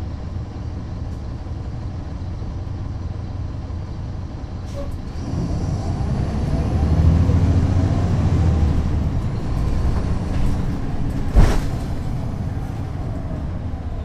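A NABI 40-foot transit bus's Caterpillar C13 diesel engine, heard from on board, running steadily at first. About five seconds in it grows louder as the bus works harder, then eases off. A brief sharp burst comes about eleven seconds in.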